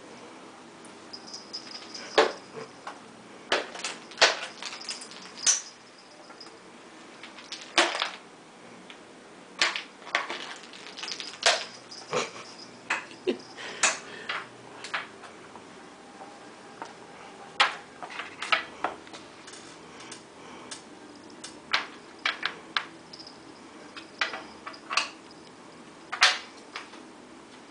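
Ice cubes batted by cats' paws, clattering and skittering across a vinyl kitchen floor: irregular sharp clicks and knocks, sometimes several in quick succession, with short gaps between.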